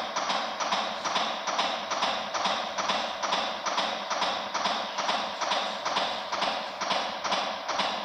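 Fast, even electronic clicking beat, about three clicks a second, played to pace CPR chest compressions on a training manikin.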